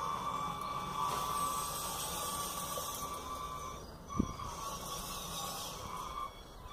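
Radio-controlled model wheel loader's electric motors and hydraulics whining, the pitch wavering as it drives and works its bucket on gravel. A single thump about four seconds in.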